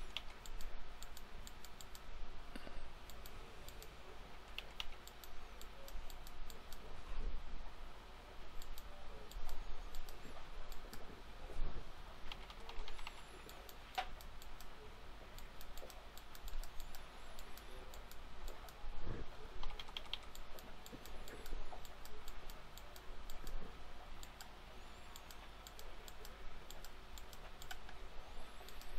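Scattered clicks of a computer keyboard and mouse, some in small quick clusters, over a low steady background hiss.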